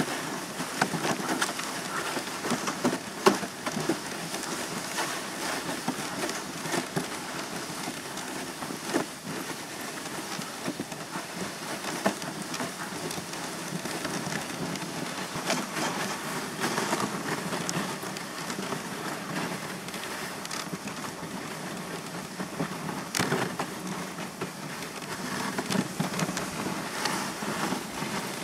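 Dog sled runners sliding and scraping over packed snow: a steady hiss with scattered clicks and knocks from the sled and gangline.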